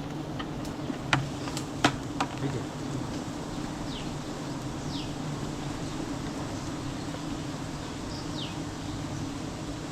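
A mass of bees from a wild hive buzzing in a steady, low hum. A few sharp clicks come in the first couple of seconds, and short falling bird chirps sound now and then.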